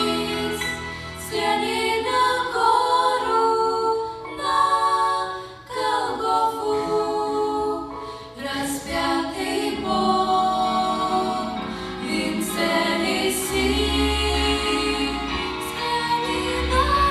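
Choir singing a song, with several voices held together on sustained, shifting notes.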